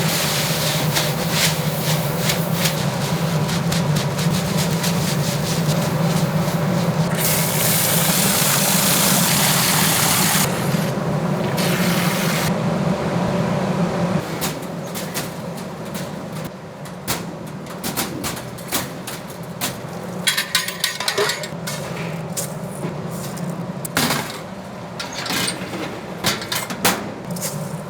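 Commercial kitchen working noise: a steady machine hum with a loud hiss for a few seconds about a third of the way in, then a run of clattering clicks and knocks of utensils and containers.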